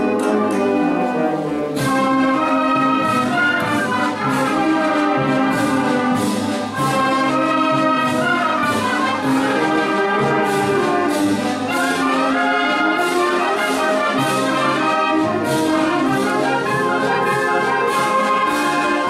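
Wind band playing a pasodoble: trumpets and trombones carry the melody over a steady march beat.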